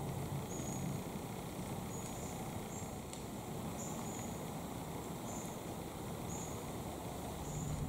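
Woodland ambience: a steady low hiss with faint, short, high-pitched chirps repeating at irregular intervals about once a second.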